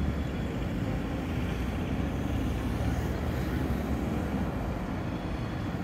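Steady low rumble of a train slowly approaching through the rail yard from a distance, mixed with the general hum of the surrounding city.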